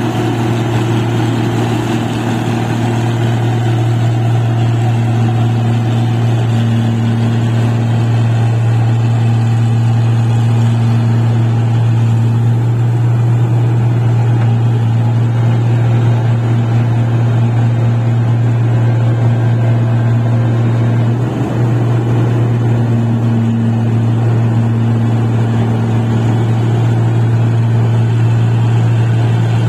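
Engine of a paddy (rice) machine running steadily at constant speed, a deep even drone with a brief dip about two-thirds of the way through.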